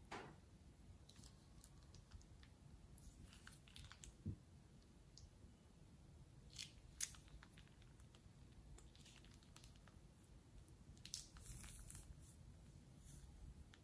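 Faint, scattered short sticky clicks and crackles of slime being squeezed from a piping bag and laid in lines onto a bowl of slime.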